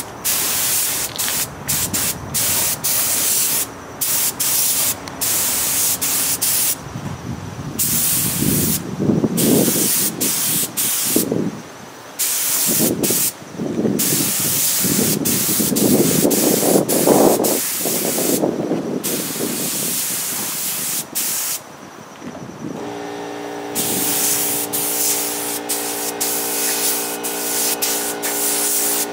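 Air spray gun (siphon-feed, cup below) spraying paint onto an engine, its compressed-air hiss starting and stopping with each trigger pull in many short passes. About two-thirds of the way through, a steady mechanical hum at a constant pitch joins in.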